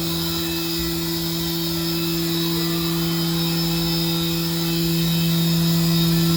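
Haas VF-6/40 CNC vertical machining center running under power: a steady hum made of two held low tones over a hiss of machine noise.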